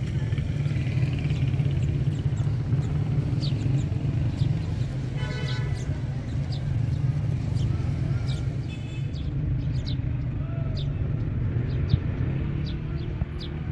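City street ambience: a steady low rumble of traffic, with short high chirps from sparrows scattered throughout.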